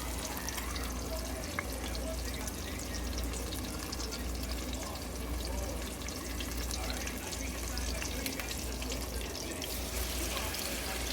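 Rainbow trout fillets frying in hot grease in a pan: a steady sizzle with lots of small crackles and pops.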